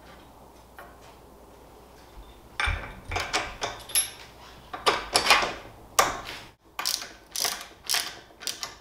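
A steel bolt clinks into a bracket, then a socket ratchet clicks in short back-and-forth strokes, two or three a second, as the bolt is run down against a wrench-held nut.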